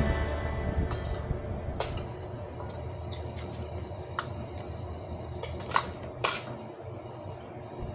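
Tableware at a meal: scattered light clinks and taps of plates and cutlery, about eight in all, the two loudest a little before and after six seconds in, over a low background rumble.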